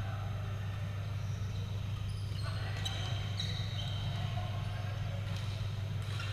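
Badminton rally: a few sharp taps of rackets hitting the shuttlecock, over a steady low hum in the hall, with faint voices from players in the middle.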